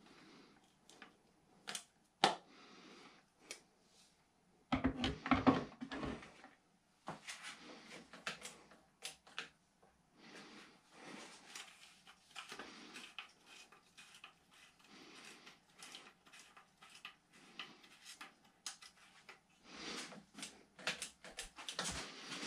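Handling noise from bicycle cables and cable housing being threaded along a road bike frame: scattered small clicks, taps and rustles. There is a louder burst of knocking and rubbing about five seconds in.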